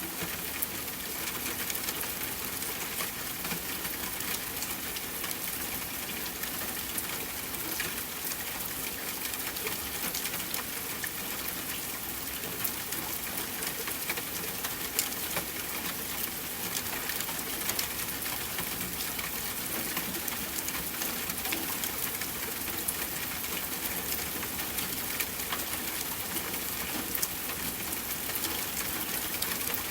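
Steady rain falling, with many individual drops ticking sharply through an even hiss.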